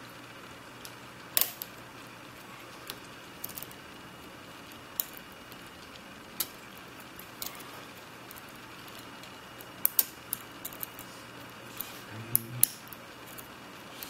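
Irregular small metallic clicks and taps of a hook pick working the pins inside a CISA 220/50 padlock under light tension, with sharper clicks about a second in, around ten seconds in and near the end.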